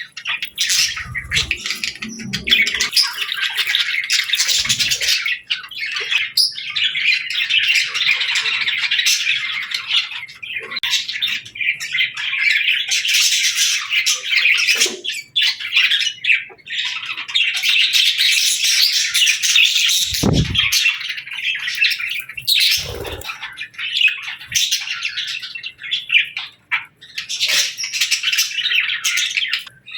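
A group of budgerigars chattering and warbling continuously, with squawky chirps, with a few brief low thuds in between, one near the start and two more after the middle.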